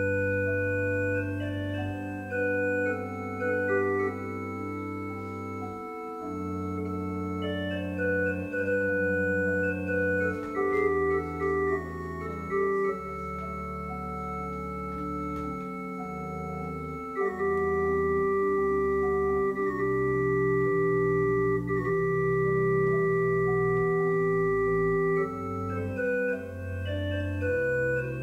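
Church organ playing slow, sustained chords over a held bass line. The chords change every second or two, with one long held chord past the middle.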